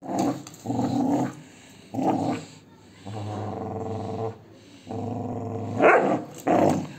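Labrador retriever growling while pulling on a cloth rope in a tug-of-war game: play growling. There are three short growls in the first two seconds, then two long steady growls, and a louder growl near the end.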